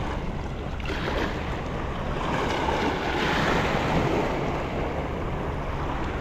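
Sea waves washing against shore rocks, with wind rumbling on the microphone; the surge builds to its loudest around the middle and then eases.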